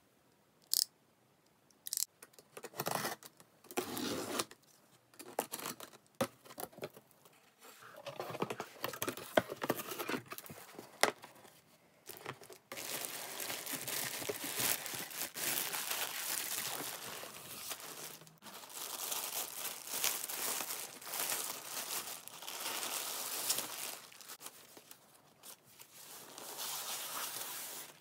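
A cardboard shipping box being opened by hand, with short tearing and scraping sounds coming in scattered bursts. From about halfway, a thin plastic bag crinkles almost without a break as it is handled and pulled open.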